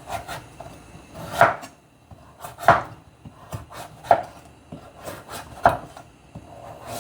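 Kitchen knife chopping through a hard Chinese pumpkin onto a cutting board: four sharp chops about a second and a half apart, with a few lighter taps between.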